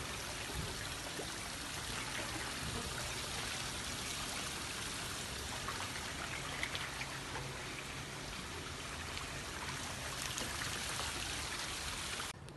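Steady rushing and trickling of running water, with a few small splashes, cutting off abruptly near the end.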